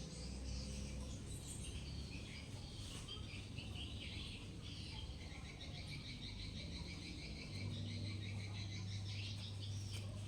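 High bird chirps mixed with fast insect trilling. A steady low hum joins about three quarters of the way in.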